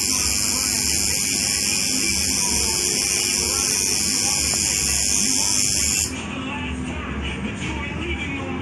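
Coil tattoo machine buzzing steadily while needling skin, with a loud hiss that cuts off suddenly about six seconds in. Voices and music sound faintly underneath.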